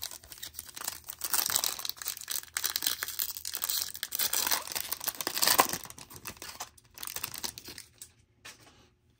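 Foil wrapper of a trading-card pack being torn open and crinkled by hand, a dense crackle for about six seconds that thins to scattered crinkles near the end.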